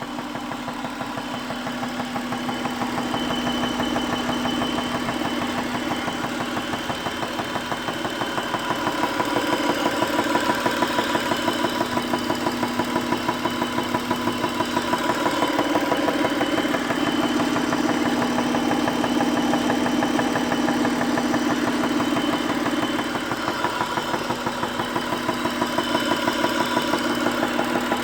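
A 2001 Acura's engine idling with a rapid, even ticking running through the engine note: an unexplained tick that the owner is seeking help with.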